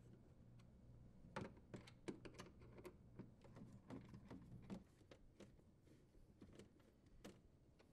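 Faint clicks and light scrapes of a Phillips-head screwdriver tightening the mounting screws of a wine cellar's control panel assembly, most of them between about one and five seconds in.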